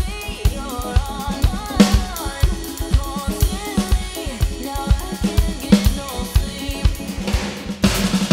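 Roland electronic drum kit played to a dance music track: a steady kick-and-snare groove with cymbals under a melodic backing line. The music changes to a denser, brighter sound near the end.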